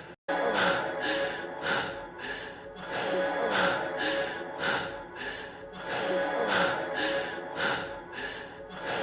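A man's quick, heavy panting in a steady rhythm of about two breaths a second, the hard breathing of a rapper at the end of a track, with a faint held musical tone beneath it. The sound drops out briefly just after the start where the loop joins.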